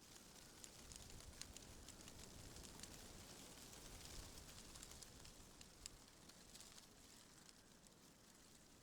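Faint rustle of tree leaves stirred by wind: a soft hiss full of tiny ticks and crackles that swells in the middle and eases off toward the end, over a faint low rumble.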